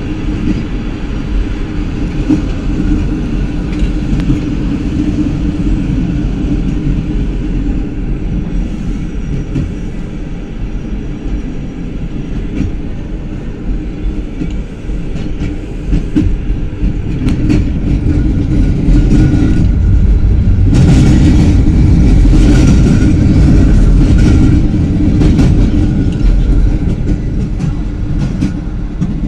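A tram running along its tracks, heard from inside the passenger compartment: a steady low rumble. About two-thirds of the way through it grows louder for several seconds with a hiss over it, then eases.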